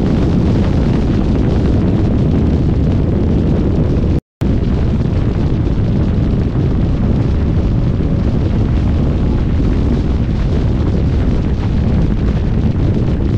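Loud, continuous low rumble of wind buffeting the microphone beside passing road traffic. The sound cuts out completely for a moment about four seconds in.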